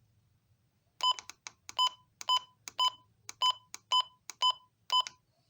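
Short electronic beeps from a weather radio receiver, about a dozen of them at roughly two to three a second, starting about a second in and stopping near the end.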